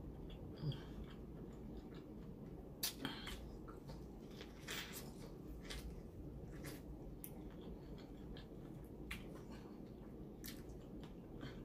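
Close-miked chewing and mouth smacks of someone eating seafood boil in sauce: irregular short clicks and smacks, with a sharper one about three seconds in.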